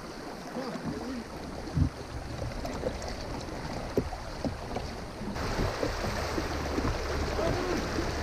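Fast river water rushing around a kayak, with one knock about two seconds in; the rush of water grows louder about five seconds in.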